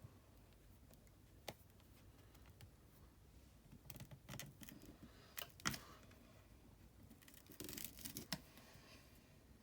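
Scattered faint clicks and scrapes of a prying tool working a heated iPhone 12 Pro Max screen loose from its frame, with one sharp click a little over halfway through.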